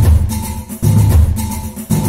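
Background music with a steady beat, percussion and a heavy bass line.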